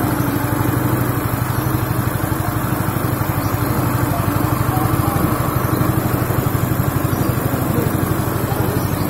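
Dry coffee husk hulling machine running steadily, with a fast, even low pulsing hum.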